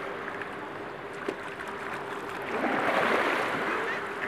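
Shallow surf washing up over sand at the water's edge, a steady rush that swells louder for about a second and a half near the end as a wave runs in.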